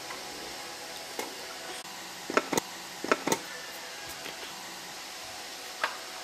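Sharp knocks and clicks of a raised access floor panel being handled with a two-cup suction lifter and set down into its metal stringer frame, loudest in a cluster of four about two and a half to three and a half seconds in, with one more near the end. Behind them is a steady faint hum.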